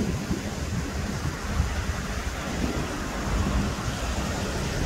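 Wind buffeting the microphone with an uneven low rumble, over the wash of small waves breaking on a sandy beach.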